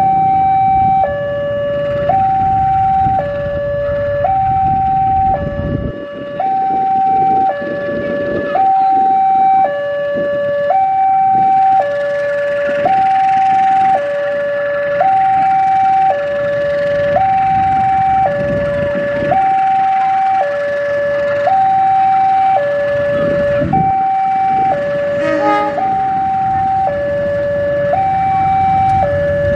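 Railway level-crossing warning alarm sounding a steady two-tone high-low signal, each tone held about a second. Underneath it the CC 201 diesel-electric locomotive's engine runs as it draws the train past.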